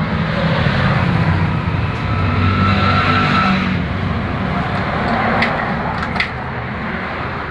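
Small motorcycle engine running with its speed dipping and rising, on a bike that keeps stalling on the road. Two sharp clicks sound a little past halfway.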